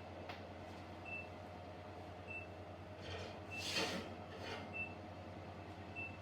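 A short, high electronic beep repeating about every second and a quarter over a low steady hum, with a brief swish about three and a half seconds in.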